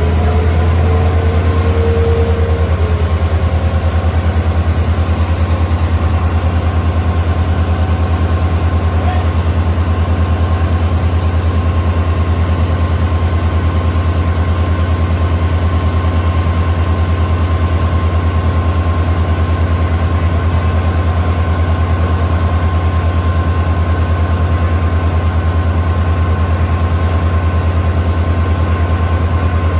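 WDP4D diesel-electric locomotive's EMD two-stroke V16 engine running steadily: a loud, deep, even hum with a fine rapid pulse and a steady higher whine over it.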